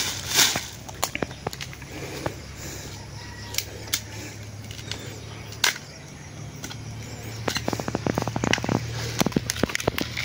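Scattered sharp snaps and crackles from bamboo shoots being handled and their outer husks pulled off, thickening into a quick run of crackling near the end.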